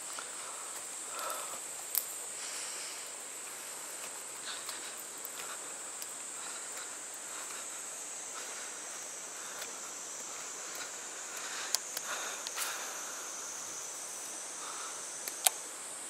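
A steady, high-pitched chorus of insects, with a few sharp clicks and short scuffing sounds over it. The loudest click comes near the end.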